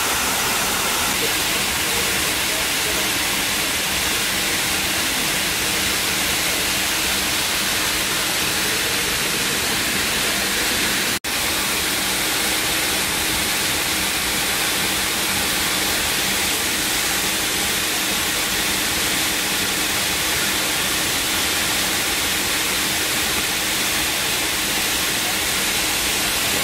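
Steady cabin noise of a McDonnell Douglas MD-80 taxiing: its rear-mounted jet engines at taxi power and the cabin air make a constant hiss over a faint low hum. The sound drops out for an instant about eleven seconds in.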